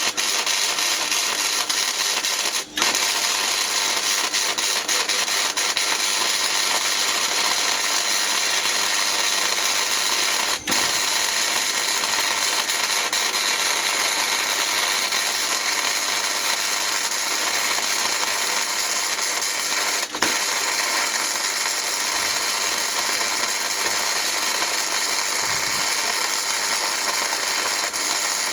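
Electric arc welder running a bead on steel: a steady, loud crackling hiss, broken three times by a split-second pause in the arc and cutting off suddenly at the end.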